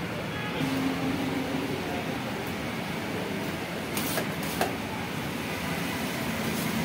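Steady mechanical hum of kitchen and street background. About four seconds in come a few sharp clicks, as a metal scraper knocks against the steel counter while chopped chicken is scooped up.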